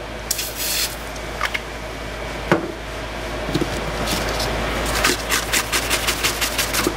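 Hand scrubbing a wet, foam-covered aluminium iPad mini back cover in a stainless steel sink. There are a few scattered knocks and rubs at first, then a quick run of sharp scrubbing strokes from about five seconds in, over a steady low hum.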